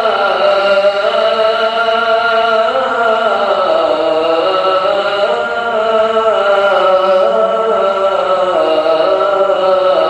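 A solo male voice chants Islamic liturgical chant in long, unbroken melismatic phrases whose pitch glides slowly up and down.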